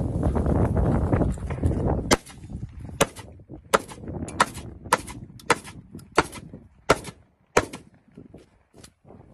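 Nine rifle-or-shotgun-type gunshots from a shouldered long gun, fired in a steady string about two-thirds of a second apart, starting about two seconds in.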